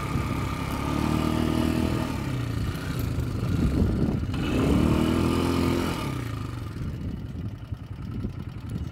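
A small motor vehicle's engine revving up and back down twice, then dropping to a quieter idle near the end.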